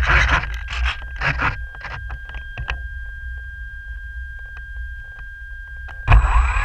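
Scraping and rustling noises, then a faint steady high-pitched tone with a few light ticks. About six seconds in, the Radian Pro's electric motor and propeller start abruptly and run loud, with a high whine.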